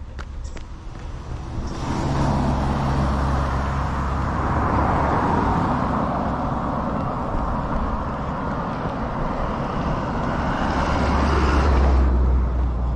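A motor vehicle passing close by on the road, a steady rush of tyre and engine noise that starts about two seconds in, grows loudest near the end and then drops away quickly.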